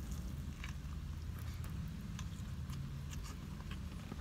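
Chewing a mouthful of turkey and provolone sub: scattered soft, wet mouth clicks and smacks over a steady low hum.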